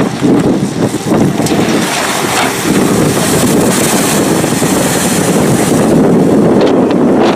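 Amphibious tour bus driving into the water from a ramp: a loud, steady rush of splashing, churning water around the hull, mixed with wind noise on the microphone, growing a little louder about three seconds in.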